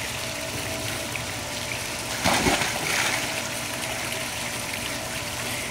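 A child jumps feet-first into a swimming pool: one splash about two seconds in, followed by a second or so of water sloshing, over a steady background hiss of moving water.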